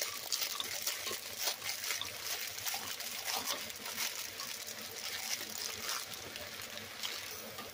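Frozen butternut squash cubes poured from a plastic bag into a pot of hot sautéing vegetables: a steady crackly hiss with many small clicks.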